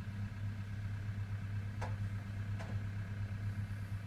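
A steady low mechanical hum with two faint clicks, a little under two seconds in and again about a second later.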